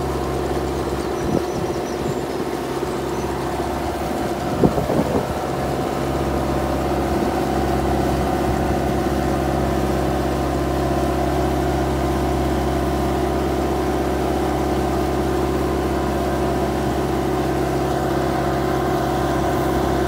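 Aquatic weed-harvester boat's engine running steadily as the boat moves along, its stern paddle wheels churning the water. A few short knocks come about five seconds in.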